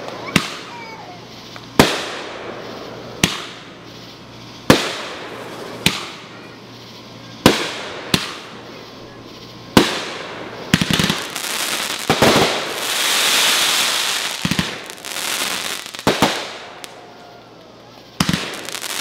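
Aerial fireworks bursting overhead: a sharp bang about every second and a half, each trailing off briefly. About halfway through, the bursts give way to several seconds of dense, overlapping hissing noise, and a few more bangs come near the end.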